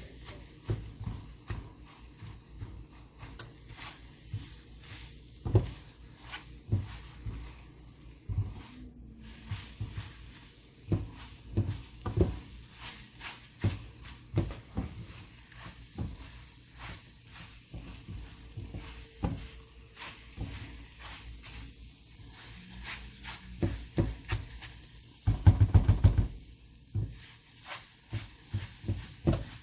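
Spatula stirring and scraping scrambled eggs in a frying pan, with irregular knocks against the pan over a faint sizzle. There is a heavier bump near the end.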